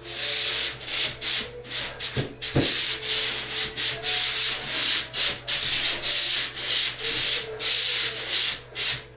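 Drywall pole sander rubbed back and forth over a ceiling of dried joint compound (sheetrock mud), a rasping hiss with each stroke, about two strokes a second.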